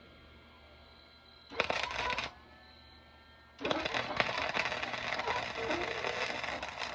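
Electric arc welding on steel: a short burst of crackling arc about a second and a half in, then a longer, steady crackling weld from about three and a half seconds on.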